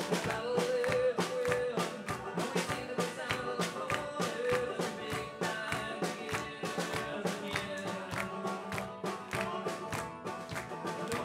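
Live band music: strummed acoustic guitar and banjo over drums keeping a steady, fast beat, with keyboard.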